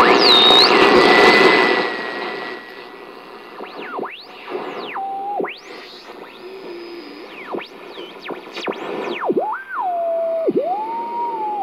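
Sony ICF-5900W multiband radio being tuned by hand, its speaker giving loud noisy reception for about two seconds, then hiss with whistling tones that swoop up and down in pitch and hold briefly as station carriers are passed.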